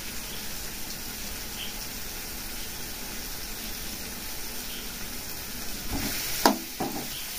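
Sliced vegetables sizzling steadily as they fry in a metal wok on a gas stove. About six seconds in, a spatula stirs them, with a sharp knock of metal on the pan.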